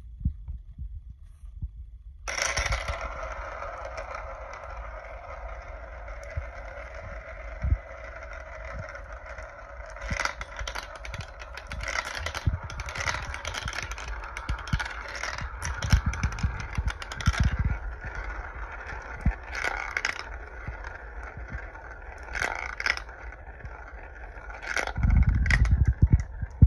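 Marbles rolling through a translucent plastic marble run: a steady rolling hum starts about two seconds in as they circle the funnel bowls and run through the tubes, with repeated clacks and clatters as they drop between pieces and land.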